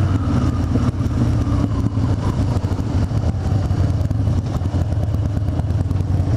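Harley-Davidson Dyna Super Glide Custom's V-twin engine running through aftermarket sport mufflers as the bike rolls along at low speed, a steady low rumble. It is heard from a microphone inside the rider's helmet.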